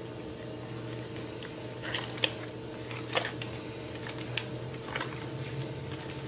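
A bare hand squishing and kneading sticky cornmeal dough with raw egg in a plastic bowl, working the egg in: scattered short wet squelches and slaps, the sharpest about two and three seconds in. A steady low hum runs underneath.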